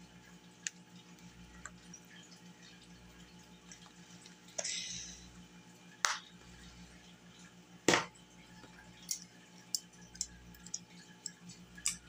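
Faint clicks and taps of small kitchen items being handled and set down on a table, with a short soft rustle about five seconds in and a sharper click about eight seconds in, over a low steady hum.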